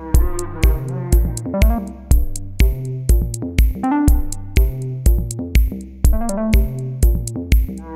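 Electronic background music: a steady drum-machine beat with synthesizer melody.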